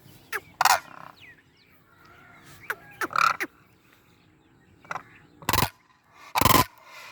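Demoiselle cranes (koonj) calling: several loud calls a second or two apart, the loudest three close together near the end.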